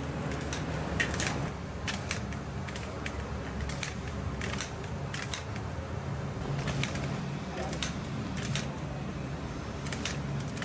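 Lever-operated manual French fry cutter pressing whole potatoes through its metal grid blade, with an irregular run of sharp clacks from the press, one or two a second, over a steady low hum.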